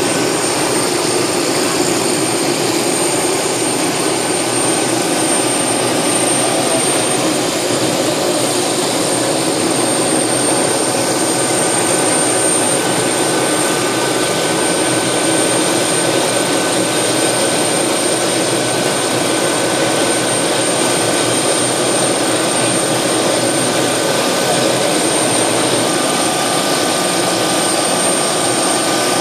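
MD 500-series turbine helicopter running steadily on the ground: a steady high whine over an even rushing noise.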